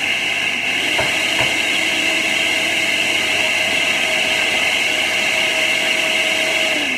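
Countertop blender running steadily at high speed, blending a smoothie. Right at the end it is switched off and the motor winds down with a falling pitch.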